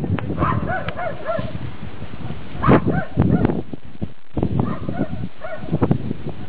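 Short arched animal calls, typical of geese honking, come in quick runs of three and repeat every couple of seconds over a steady rumble of wind on the microphone.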